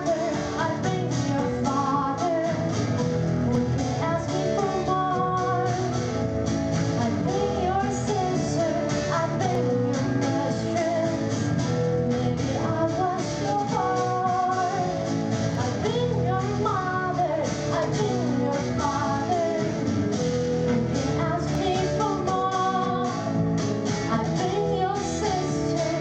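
A female singer singing a pop-rock ballad with guitar and band backing.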